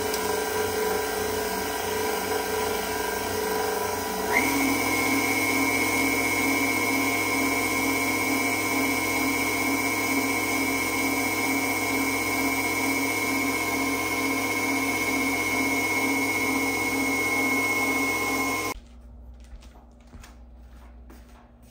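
A small electric appliance motor running with a steady whine. About four seconds in it steps up to a higher speed with a brief rising whine, and it switches off abruptly a few seconds before the end, leaving faint light taps.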